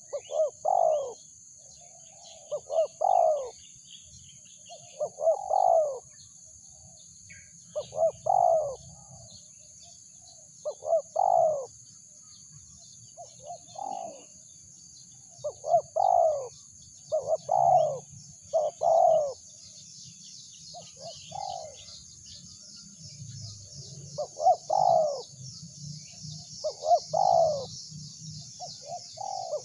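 Spotted dove cooing: a loud, repeated phrase of two or three coos about every two to three seconds, with a pause of a few seconds past the middle. A high chattering of insects or small birds grows behind it in the second half.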